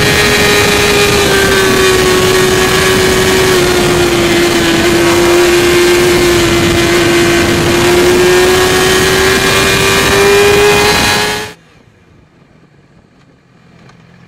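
2008 Yamaha YZF-R6's 600 cc inline-four engine running steadily at high revs, around 11,000 rpm, at about 90 mph, with heavy wind rush. Its pitch sags slightly mid-way and then climbs again. About three-quarters of the way through the sound drops off suddenly to a much fainter, low engine sound.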